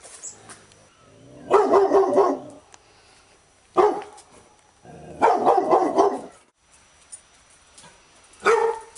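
Labrador retriever barking in bursts: a quick run of barks about a second and a half in, a single bark near four seconds, another run of barks around five to six seconds, and a single bark near the end.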